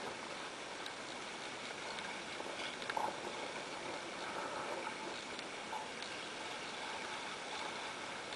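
Steady rush and splash of water along the hull of a small sailing dinghy under way, with a louder splash about three seconds in.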